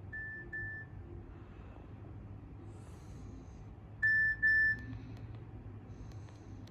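Nokia 7230 mobile phone giving short electronic double beeps of one steady pitch: a faint pair near the start and a louder pair about four seconds in, over a low hum.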